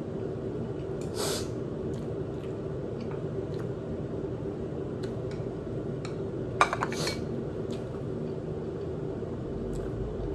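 Eating from a bowl of instant noodles: a utensil clicking and clinking against the bowl, with two short louder noisy bursts, about a second in and around seven seconds, over a steady low hum.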